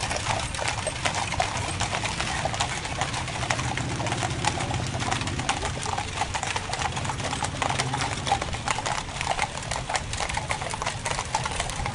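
Hooves of a four-horse coaching team clip-clopping on a hard road as they pull a stagecoach past, with many quick overlapping clops.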